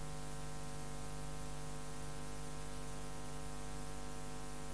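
Steady electrical hum with hiss, unchanging throughout: background noise on the soundtrack between narrated lines.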